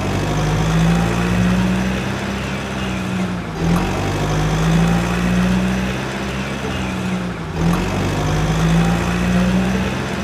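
An engine sound effect of a heavy vehicle running: a steady low hum that wavers slowly in pitch over a hiss. It breaks briefly about every four seconds, as a short loop repeating.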